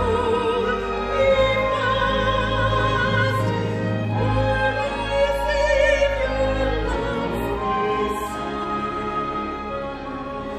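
Solo soprano singing with wide vibrato over orchestral accompaniment of strings and sustained low bass, getting a little softer near the end.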